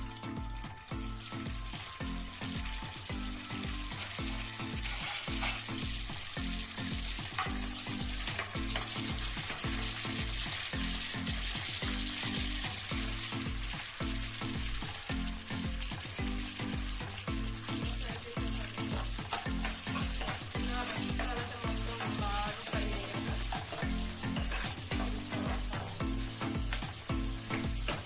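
Curry leaves, then chopped onions and green chillies, sizzling in hot oil in a steel kadai, with a steel ladle stirring and scraping against the pan. The sizzle grows louder about a second in.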